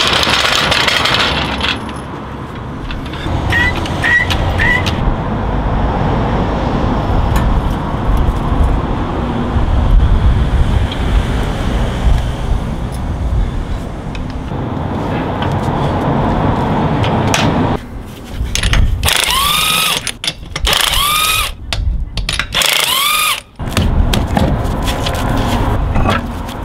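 Hand tool work on a car on a driveway: a trolley jack being pumped up under the front, with clanks and scrapes over a steady low rumble. Near the end come four squeaky metal squeals, each rising and falling, with clatters between them as the wheel is worked loose.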